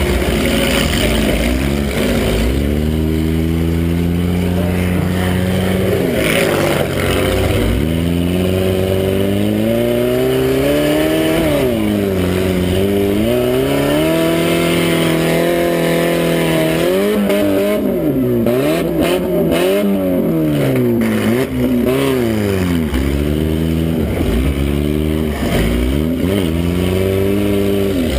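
Demolition-derby mini truck's engine, heard from inside its cab, revving up and down over and over, the pitch rising and falling every few seconds.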